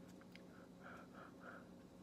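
Near silence over a steady low hum, with four short, faint sniffs through the nose in quick succession around the middle.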